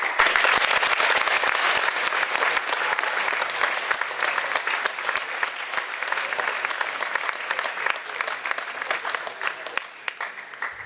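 Audience applauding: dense clapping that starts suddenly, is loudest in the first couple of seconds, then thins out gradually.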